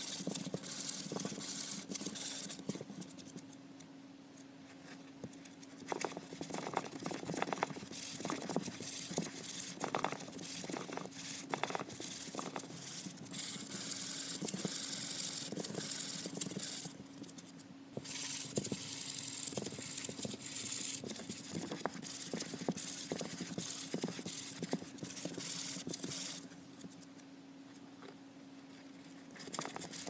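Roborovski dwarf hamster scurrying and scratching about in cardboard tubes, an irregular run of light scrapes and taps on cardboard over a steady low hum. The scratching drops away briefly about four seconds in and again near the end.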